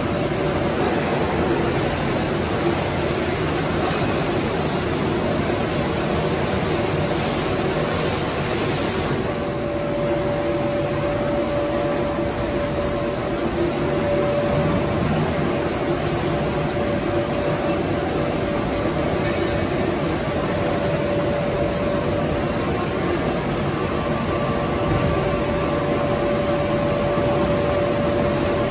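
Slitter-rewinder machine running, its rollers turning under the paper web, giving a steady mechanical hum and hiss. A steady whine joins about a third of the way in.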